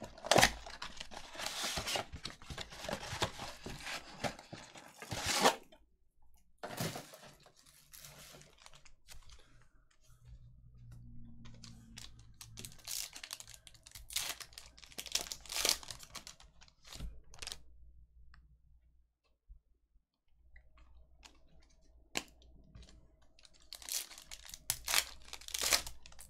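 Plastic shrink wrap crinkling and tearing for about five seconds as it is stripped off a trading-card box, then scattered crinkles and tearing as a foil card-pack wrapper is ripped open, with a louder burst of crinkling near the end.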